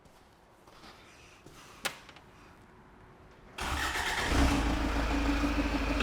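A single click about two seconds in, then the 2003 Hyundai Santa Fe's common-rail diesel engine cranks briefly and catches in under a second, settling into a steady idle. It now starts easily because the fuel rail pressure builds properly during cranking, after a P1181 fuel pressure monitoring fault.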